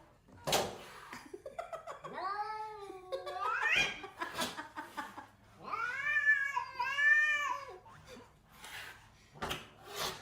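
A cat yowling in long, drawn-out meows: one call that bends and then rises in pitch, and a little later two arching calls back to back, with a few short knocks in between.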